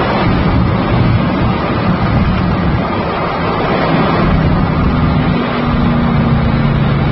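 Pickup truck's tuned GM 5.3-litre V8 running under way, a steady loud drone mixed with road and wind noise. The engine pitch shifts a little about five seconds in.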